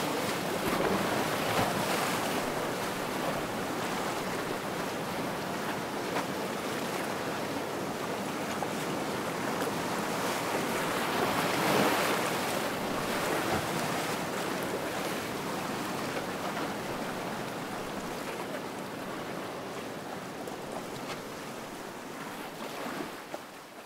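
Ocean surf washing over a rocky shoreline: a steady rushing wash that swells about twelve seconds in and fades out near the end.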